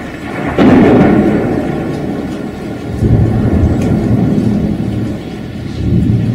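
Thunder rumbling in a rainstorm: a sudden loud peal about half a second in, then rolling swells around three seconds and again near the end, over steady rain.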